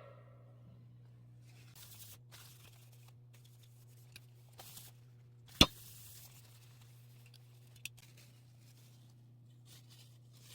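Faint handling noises, soft rustles and taps, over a low steady hum, with one sharp click about five and a half seconds in and a smaller one a couple of seconds later.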